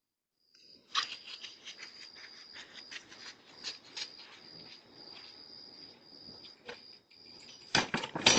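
Crickets trilling steadily at night, heard through a doorbell camera's microphone, with scattered soft clicks and a louder burst of clattering near the end.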